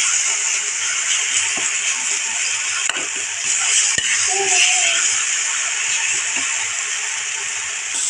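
Masala sizzling in oil in a kadai while a metal spatula stirs and scrapes through it, with a couple of sharp knocks of the spatula against the pan about three and four seconds in.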